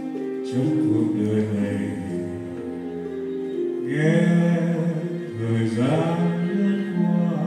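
A male singer's voice over backing music, a slow ballad sung into a microphone, with long held notes and slides up onto several of them.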